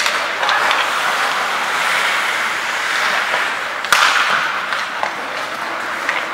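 Ice hockey skates scraping and carving on the ice, with sharp clacks of sticks and puck; loud cracks right at the start and about four seconds in.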